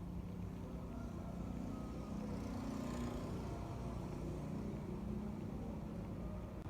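A motor vehicle engine running with a steady low rumble, growing a little louder about halfway through.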